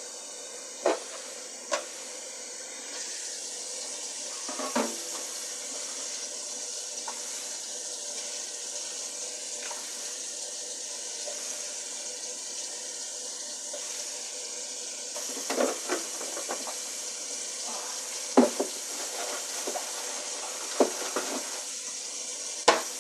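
Water running in a kitchen sink as rice is rinsed, a steady hiss, with scattered knocks and clatters of a pot and utensils.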